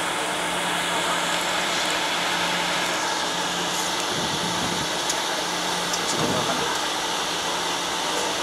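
Steady cockpit noise of a Bombardier Global 6000 rolling slowly on the ground after landing: the engines at idle and the cockpit air running, with a low hum. Two brief low rumbles swell about four and six seconds in.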